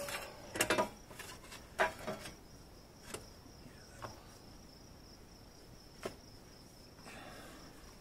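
Staintune exhaust pipe clinking and knocking against metal as it is wiggled into place under a motorcycle: a cluster of sharp knocks in the first two seconds, then single ones about 3, 4 and 6 seconds in. A steady high insect trill runs underneath.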